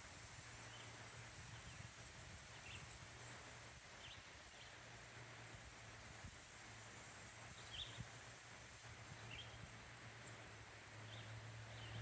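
Quiet outdoor ambience near silence: faint, short bird chirps scattered through it over a low, steady hum.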